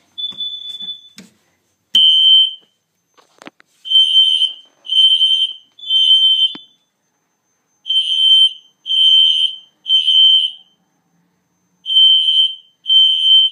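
Electronic fire alarm horn sounding loud half-second pulses of a high tone, three at a time with a longer pause between groups: the temporal-three evacuation pattern. A short steady beep and a couple of clicks come just before the first pulse.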